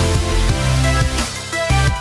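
Electronic background music with a steady beat and heavy bass.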